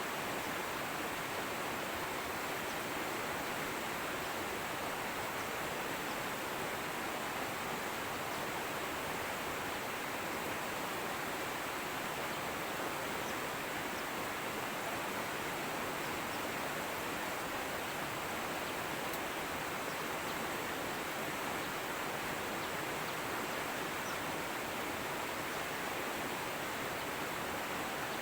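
Fast-flowing river running with a steady, unbroken rush of water.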